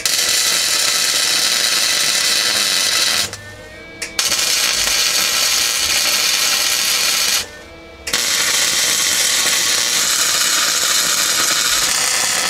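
Wire-feed welder arc crackling steadily as it lays tack welds on a 1/8-inch steel seat support. It comes in three runs, with short breaks about three and a half and seven and a half seconds in. The welder is a Lincoln 140 running flux-core wire.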